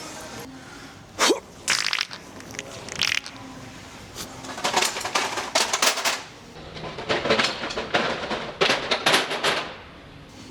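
A string of wet fart sound effects: about six separate bursts, each a quick flutter of pulses, the first few short and the later ones longer and drawn out.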